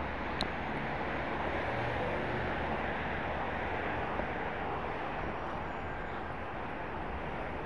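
Steady noise of heavy multi-lane highway traffic passing, with a single short click a little under half a second in.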